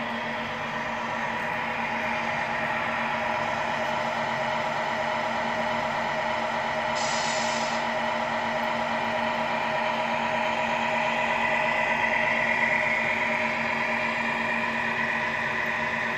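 Tamiya 1/14 Scania R620 radio-controlled truck driving slowly: a steady hum from its running gear and the engine noise played by its MFC-01 sound unit, growing a little brighter about twelve seconds in.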